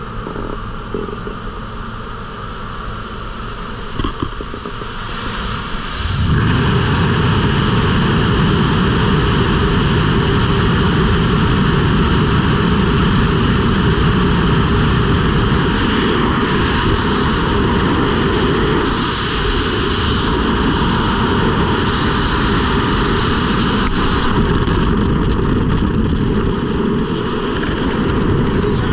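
Steady drone of a jump plane's engine and airflow at the open door, then about six seconds in a sudden loud rush of freefall wind buffeting the helmet-mounted camera. The wind eases somewhat in the last few seconds as the parachute deploys.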